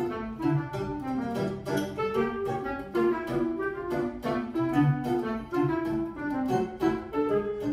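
Choro quartet playing: clarinet carrying the melody over quick plucked bandolim (Brazilian mandolin) notes, piano and double bass.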